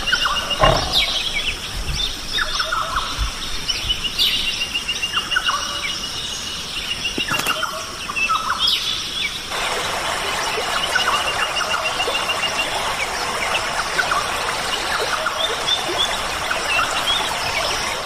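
Tropical forest ambience: assorted birds calling and chirping, twice with a rapid trill of repeated notes, over a steady high insect drone. From about ten seconds in an even hiss joins, and a few low thumps sound in the first few seconds.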